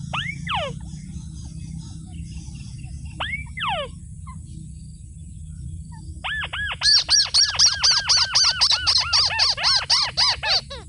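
Bird calls: a sharp whistled note sliding steeply down near the start and another a few seconds later. From about six seconds in comes a loud, rapid series of rising-and-falling notes, about four a second, over a steady low rumble.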